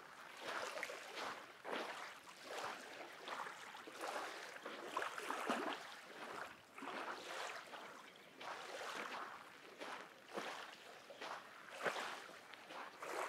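Small lake waves lapping and washing on a black-sand shore, coming in irregular surges.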